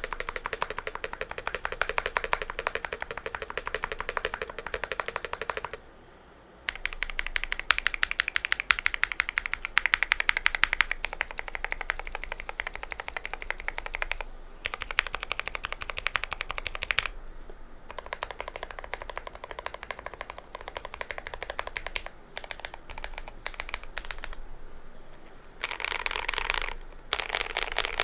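Mechanical keyboard typing on a GMMK Pro with stock KTT Kang White V3 linear switches: fast runs of keystroke clacks broken by short pauses, one about six seconds in.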